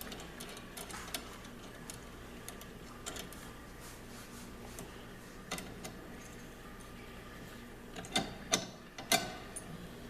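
Scattered small clicks and knocks of parts and hand tools being handled while assembling a ride-on toy truck, with three sharper clicks near the end.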